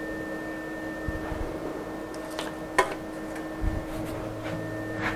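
6040 CNC router jogging slowly, its axis stepper motors giving a steady whine, with a few light clicks.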